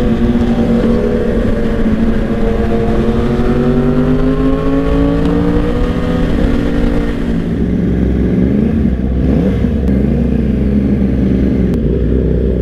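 Yamaha R1 superbike's inline-four engine pulling at highway speed, its pitch climbing slowly, over wind rush. About seven seconds in it gives way to a lower, uneven engine sound of slow riding.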